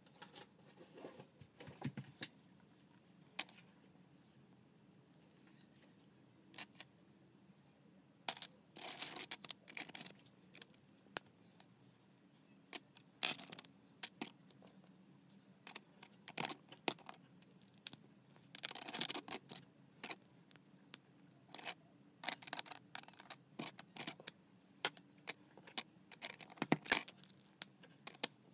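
Plastic LEGO bricks being handled and fitted: scattered sharp clicks and short rattles, with two longer bouts of rattling about a third and two thirds of the way in, and quick clicking near the end.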